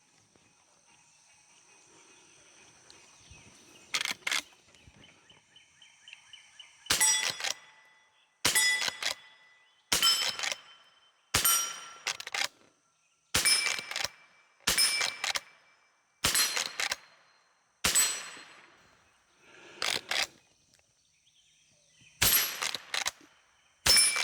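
.22 rimfire carbine shots, about a dozen, one every second or two, each with a metallic ring of struck steel targets downrange.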